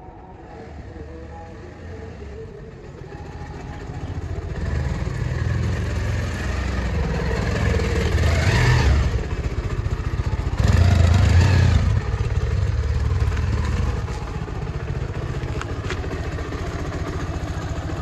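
Bajaj Pulsar 180's single-cylinder engine running with a steady low pulse. It grows louder over the first few seconds and swells up twice near the middle.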